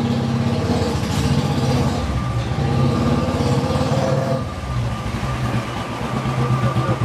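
Royal Enfield Bullet's single-cylinder engine running at low revs with a quick, even pulsing beat as the motorcycle rolls slowly past. The beat dips briefly about four and a half seconds in, then comes back louder.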